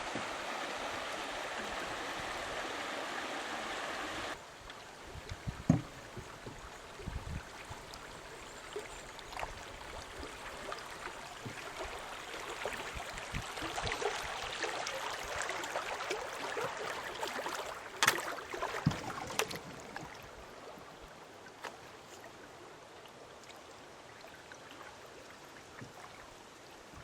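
Flowing river water around a canoe: a steady rush for about four seconds, then after an abrupt change, quieter water with scattered light knocks and splashes, the sharpest about six and eighteen seconds in.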